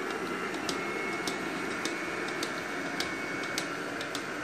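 Robot vacuum cleaner running just after being switched on: a steady motor whir with a high whine, and light ticks about every half second.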